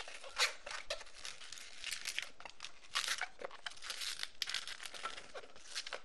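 A latex 260 modelling balloon being twisted into bubbles and an ear twist, the rubber rubbing and scraping against itself and the hands in quick, irregular bursts of rustling.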